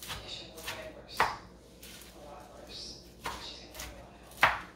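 Kitchen knife rough-chopping spinach and ham on a wooden cutting board: a handful of sharp, irregular strikes, the loudest about a second in and near the end.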